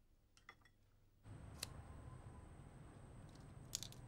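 Faint clicks of chopsticks against a porcelain rice bowl, then a low steady background hiss with a few sharp wooden clicks and knocks as thin strips of firewood are fed into a clay cooking stove.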